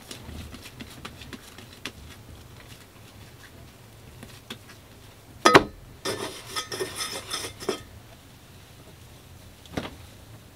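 Kitchen dishes and pots clattering: one sharp clank about five and a half seconds in, a run of clattering just after it, and another single knock near the end.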